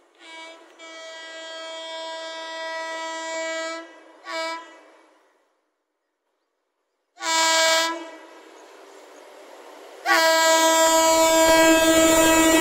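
WAP7 electric locomotive's horn sounding a series of blasts at one steady pitch: a short toot, a long blast of about three seconds, another short toot, a pause, another short blast, then a long loud blast starting about ten seconds in, as the rumble of the approaching train joins it.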